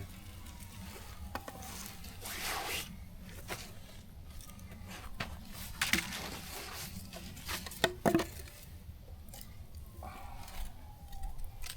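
Campfire hissing, with irregular pops and crackles: melting ice is wetting the fire and putting it out.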